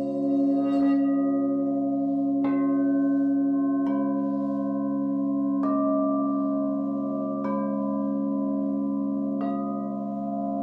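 Several singing bowls struck one after another, about every two seconds, each strike bringing in a new pitch while the earlier tones ring on and overlap.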